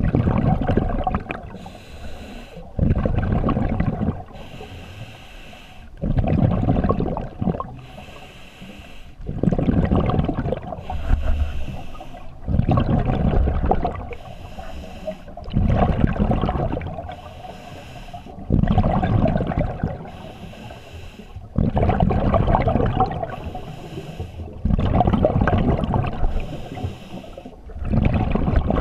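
Scuba diver breathing through a regulator underwater in a steady cycle about every three seconds: a quieter hiss on the inhale, then a louder rumble of exhaled bubbles.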